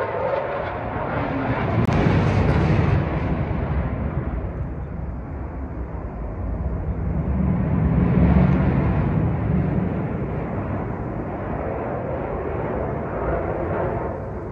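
Military fighter jet's engine roar passing overhead during high-manoeuvre flight: a deep, rumbling roar that swells about two seconds in and again around eight seconds.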